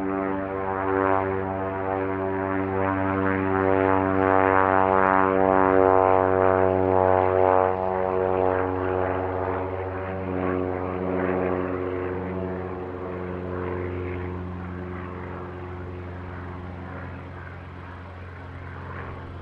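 1948 Stinson's propeller-driven piston engine at full takeoff power, a steady many-toned drone that is loudest about six seconds in and then slowly fades as the plane climbs away.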